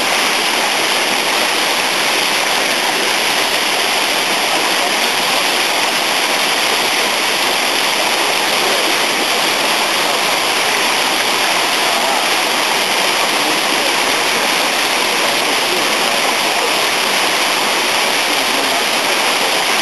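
Water rushing steadily down a fish ladder, a loud and even cascading rush with no change in level.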